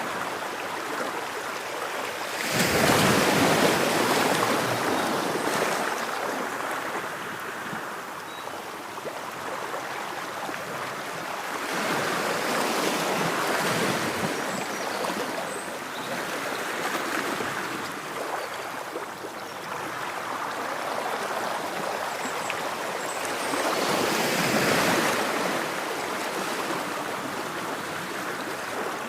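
Ocean waves washing on a shore, a steady wash of surf that swells three times as waves break, about ten seconds apart.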